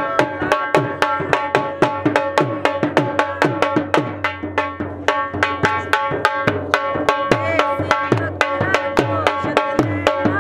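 Dhol drum played in a fast, steady rhythm of about five strokes a second, its deep bass strokes dropping in pitch as they ring. Steady held tones run underneath the drumming.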